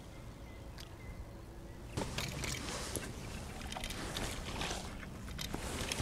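Water splashing and sloshing at the surface as a hooked crucian carp is pulled in to the bank. It starts suddenly about two seconds in, as a run of irregular splashes.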